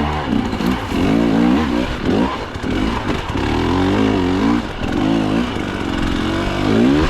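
Two-stroke KTM hard enduro dirt bike engine revving in short throttle bursts. Its pitch rises and falls repeatedly, with a sharp rev up near the end.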